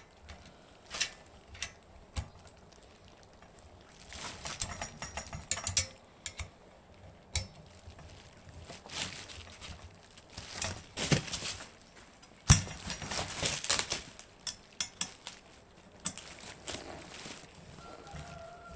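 Metal fork parts and hand tools clinking and knocking in irregular bursts during assembly of a bicycle springer fork, with one sharp knock about twelve seconds in as the loudest sound.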